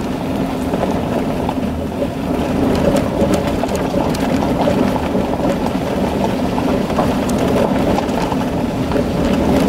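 Honda CR-V driving on a gravel road, heard from inside the cabin: steady tyre and road rumble with a constant scatter of small clicks as gravel crackles under the tyres.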